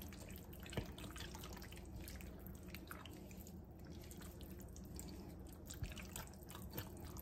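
A spatula stirring a thick, creamy shredded-chicken casserole mixture in a glass mixing bowl: faint wet squishing with scattered small clicks.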